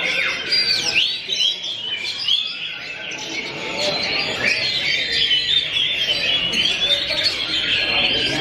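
Oriental magpie-robin (kacer) in full contest song among other songbirds, a dense mix of overlapping chirps, whistles and quick rising and falling notes.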